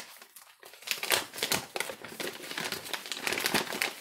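Plastic MRE accessory-kit pouch being opened and its wrapped contents handled. There is dense crinkling and rustling of plastic packaging, which picks up about a second in.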